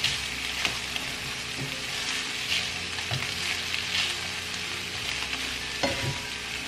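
Diced Chinese chorizo and mixed vegetables sizzling in a frying pan while a spatula stirs and scrapes them, in repeated strokes about every half second, with a couple of sharper knocks of the spatula near the end.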